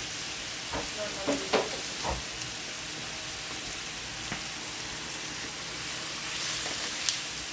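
Chicken pieces and garlic sizzling in hot oil in a frying pan, a steady hiss. A few sharp knocks against the pan come in the first two seconds, with a couple more later.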